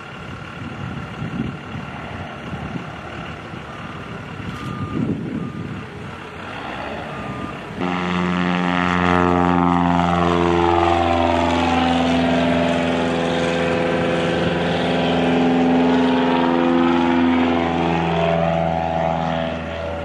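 Light high-wing taildragger's piston engine and propeller droning through low passes. The drone is rough and uneven at first, then from about eight seconds in it is louder and more strongly pitched, with a sweeping quality as the plane passes close.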